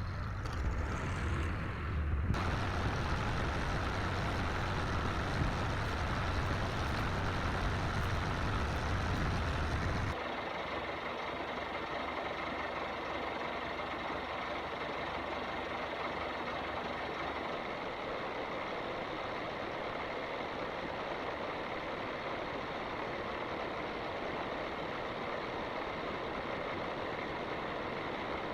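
Farm machinery engine running steadily, with a heavy low rumble that changes sharply about two seconds in and drops away about ten seconds in, leaving a lighter steady engine sound.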